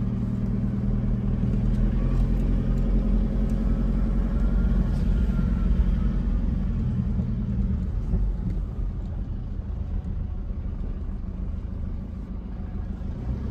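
Cabin noise of a Chevy ZR2 pickup driving on a dirt track: a steady low engine and tyre rumble, a little louder in the first half.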